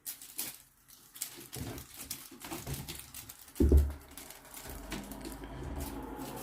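British Shorthair kittens' claws scrabbling and pattering as they play on a cat tree, with one loud thump about three and a half seconds in.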